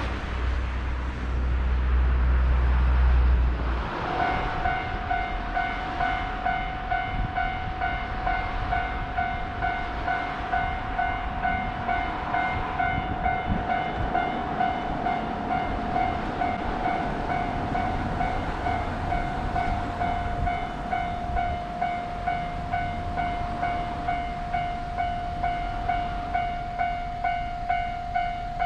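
Level-crossing warning alarm ringing: a steady electronic ding repeated in an even rhythm, about one and a half times a second, starting about four seconds in. Before it starts, a low engine rumble from a passing vehicle.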